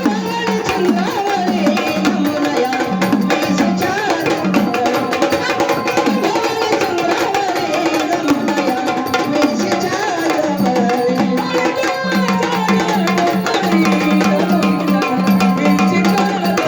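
Marathi gondhal folk music for a gaulan song: sambal drums beating a fast, dense rhythm under an electronic organ melody, with a repeated low pulsing note.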